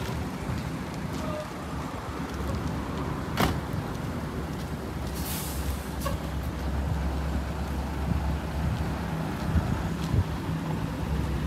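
Low, steady rumble of parked tour coaches idling, growing a little stronger about halfway through. There is a sharp click about three seconds in and a short hiss about five seconds in.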